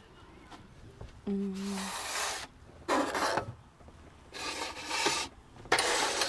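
Rustling and rubbing from setting a table: napkins handled and tableware slid across the tabletop, in four noisy bursts of about half a second to a second each. A short low tone sounds at the start of the first burst.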